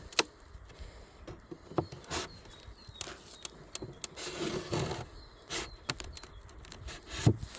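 Scattered knocks and clicks of beehive woodwork and frames being handled, with a longer scraping rustle about four seconds in.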